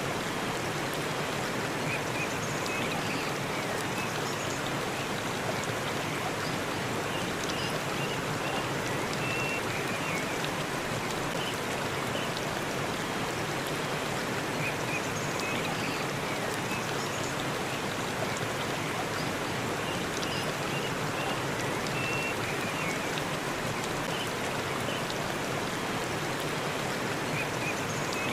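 Forest waterfall rushing steadily: an even, unbroken wash of falling water, with faint short high chirps now and then.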